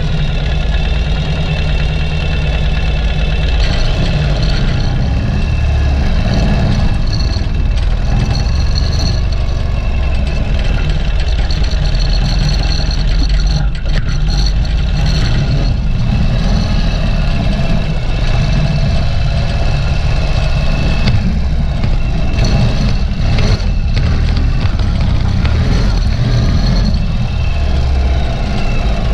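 Ural sidecar motorcycle's air-cooled flat-twin engine running steadily under way.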